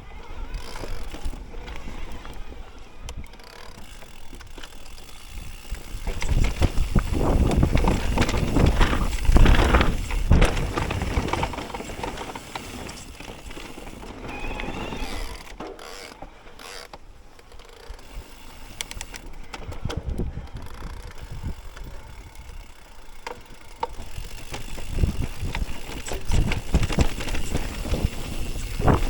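Mountain bike riding down a rough, rooty trail: tyres on dirt and roots, with the chain and frame rattling and clicking. It is louder about six to eleven seconds in and again near the end.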